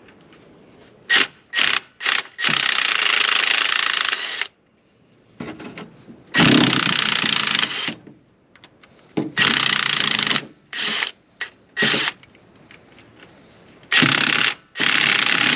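Impact wrench hammering on the cylinder-head bolts of a Ford flathead V8 in repeated bursts, some brief blips and several runs of one to two seconds, as the bolts are broken loose.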